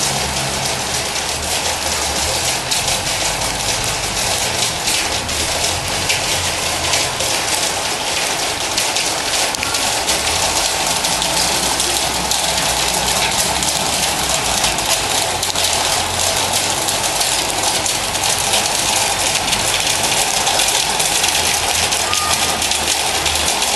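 Steady, dense hiss of rain drumming on a metal building roof, with a low hum that comes and goes every few seconds.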